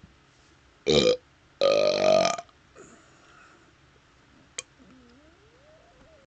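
Man belching after chugging A&W root beer: a short, loud burp about a second in, then a longer one lasting almost a second, both brought up by the swallowed soda fizz.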